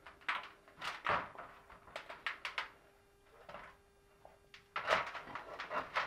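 Flat metal scraper blade scraping softened old paint off a sheet-steel panel in short, irregular strokes, some in quick runs. The paint has been soaked in a brake-fluid-and-acetone stripper and is coming off only a little.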